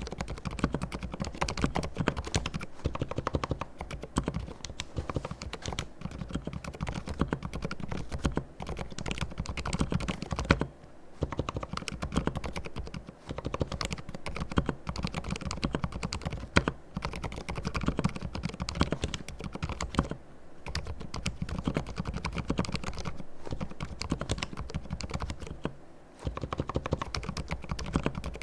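Fast, continuous typing on a mechanical keyboard with fully lubed silent red linear switches: a dense run of soft keystrokes, with short pauses a few times.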